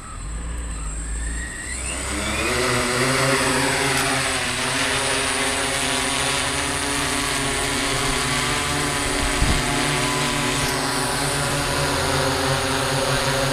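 DJI S800 hexacopter's six electric motors and propellers spinning up, rising in pitch over the first couple of seconds, then holding a steady buzzing hum as it lifts off and hovers. A brief low thump about nine seconds in.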